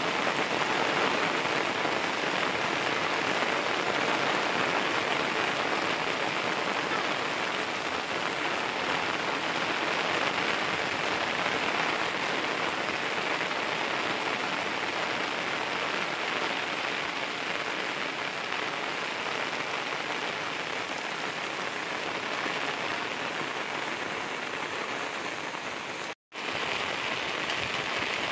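Steady rain falling on the ground, leaves and shelter, an even hiss of drops, broken once near the end by a brief cut to silence.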